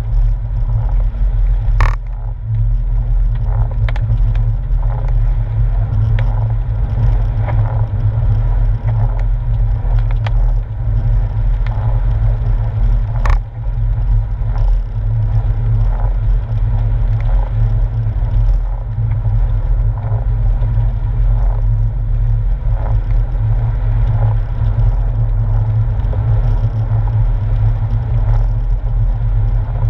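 Porsche 997's flat-six engine and tyres heard from inside the cabin while driving, a steady low rumble. A couple of sharp clicks cut through it, about two and thirteen seconds in.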